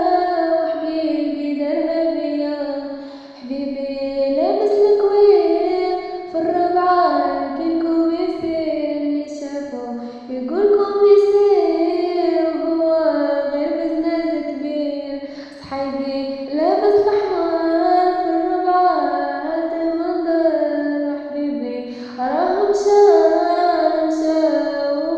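A girl singing an Arabic song solo, the same melodic phrase repeated about every six seconds, each one leaping up and stepping back down.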